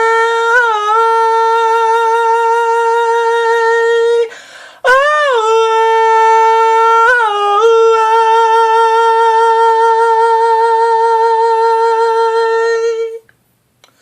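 A singer humming wordless melody on long held high notes with small slides and dips in pitch, pausing briefly for a breath about four seconds in. The humming stops about a second before the end.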